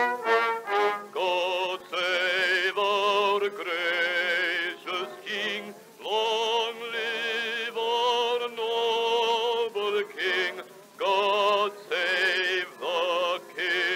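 Opening theme music: an operatic-style melody of quick short notes and long held notes sung or played with a wide vibrato.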